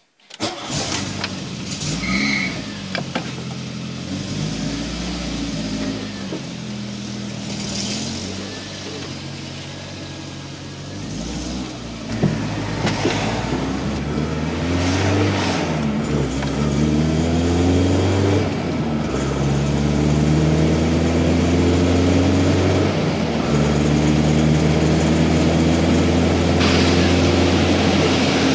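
1984 VW Golf Mk2 GTI's 1.8-litre four-cylinder engine running and being driven, its pitch climbing and dropping back again and again as the car accelerates through the gears.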